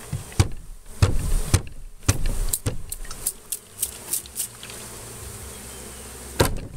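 Honeybees buzzing over an open hive while wooden hive boxes knock and bump. A run of short, quick squirts from a hand spray bottle of sugar water follows midway, and there is a loud knock near the end.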